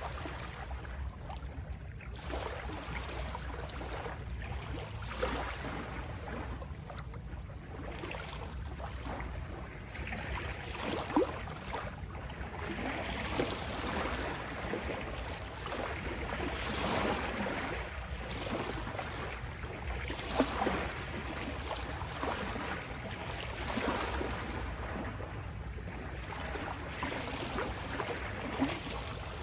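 Small waves lapping and washing on a shoreline, swelling and falling back every few seconds with a low rumble beneath and a few small splashes.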